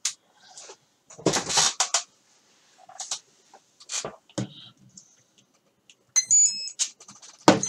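Rustling and clicking of a LiPo battery being handled and plugged into a model flying wing, then a quick run of short electronic beeps at several different pitches about six seconds in: the power-up tones of the wing's electronics as the battery connects.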